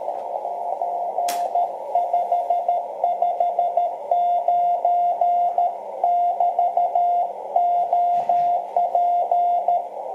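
Morse code (CW) received on a shortwave transceiver on the 30 m band: a steady single tone keyed on and off in dits and dahs over a band of hiss, with one sharp click about a second in.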